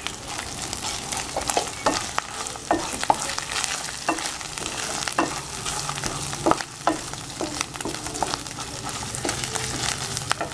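Chopped onions, ginger-garlic-chilli paste and freshly added cumin seeds sizzling in hot oil in a metal pan, the base of the masala being fried. A wooden spatula stirs through it, scraping and knocking irregularly against the pan.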